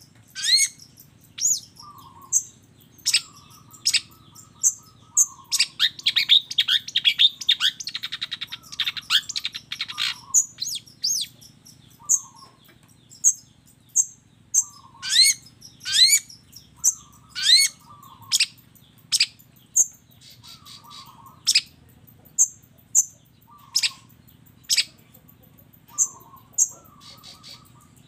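Long-tailed shrike (cendet) singing a loud, varied song. It gives repeated sharp whistles that sweep downward and short call notes, with a dense burst of rapid chattering about six to ten seconds in.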